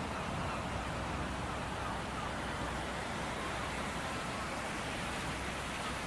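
Steady rush of ocean surf and wind, with faint wavering high calls in the background.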